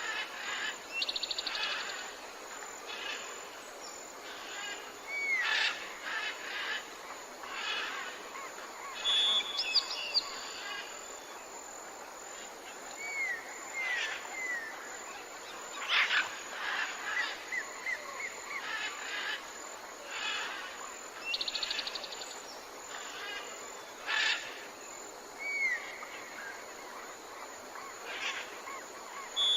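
Jungle ambience: many birds calling over a steady background hiss, with short whistles, quick falling notes, rapid high trills and sharp chirps coming every second or two. The same sequence of calls comes round again about twenty seconds later, as in a looped recording.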